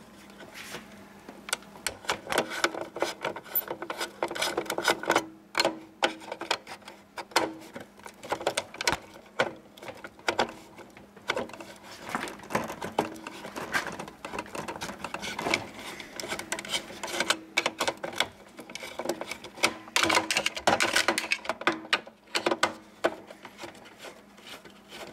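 Irregular clicking and clattering of hand tools, screw terminals and wiring being handled as wires are pulled out of an old RV power panel, over a faint steady hum.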